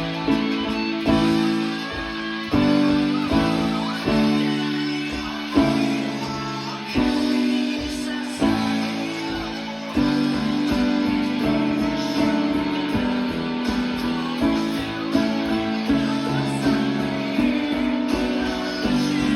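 Band music with guitar and a keyboard part, sustained chords changing about once a second.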